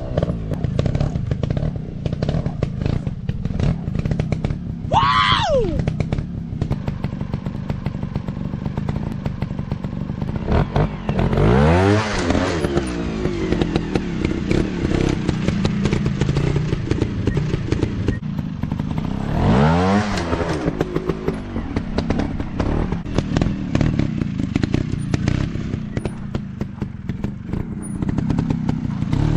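Trail motorcycle engines running and revving, the engine note rising then falling sharply twice, about a third and two-thirds of the way in, with a steady patter of clicks and clatter.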